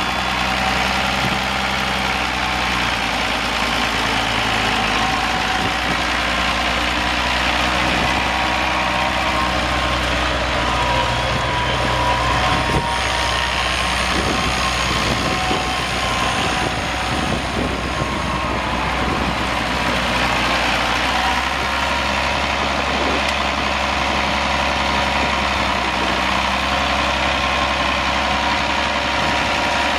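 1975 International Farmall 766's six-cylinder diesel engine running at a steady low speed while the tractor is driven slowly around.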